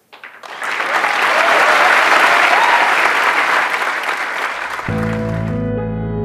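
Audience applauding, a dense steady clapping. About five seconds in, soft background music with held notes comes in and takes over as the clapping stops.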